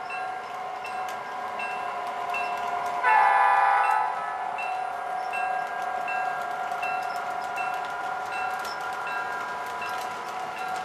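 A model GP9 diesel locomotive's onboard sound system ringing its bell steadily, about two strikes a second. Its horn sounds one short blast about three seconds in.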